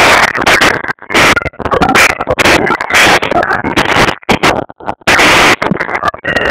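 A room of TV viewers cheering and yelling in loud bursts, so close and loud that the phone microphone distorts.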